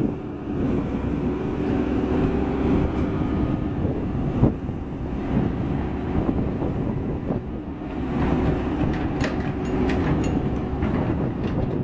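JCB backhoe loader's diesel engine running with a steady drone as the hydraulic arm works the rear bucket. There is one sharp knock about four and a half seconds in as the bucket strikes the pile of smashed speakers, and a few light clanks near the end.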